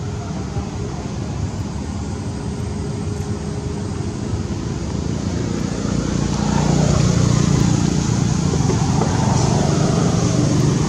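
Steady low rumble of road traffic, growing louder about six seconds in as a vehicle comes nearer.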